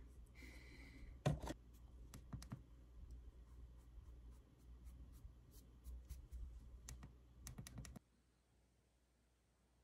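Faint scattered clicks and taps, with one louder knock about a second in, cutting off abruptly about eight seconds in.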